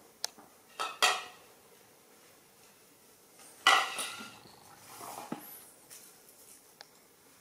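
Hard objects clattering and knocking on a tiled floor: two loud clatters with a brief ring, about a second in and near four seconds, then a few lighter knocks.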